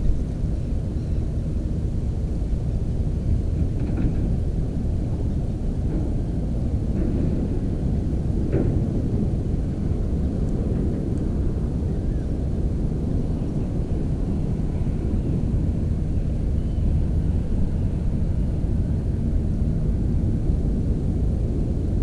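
Steady low rumble of wind buffeting the microphone, with a couple of faint soft ticks about four and eight seconds in.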